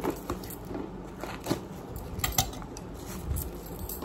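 A cardboard parcel and its plastic wrapping being pulled open by hand: rustling and crinkling, with a string of sharp clicks and knocks from the packaging and the hard plastic inside. The loudest clicks come about a second and a half and two and a quarter seconds in.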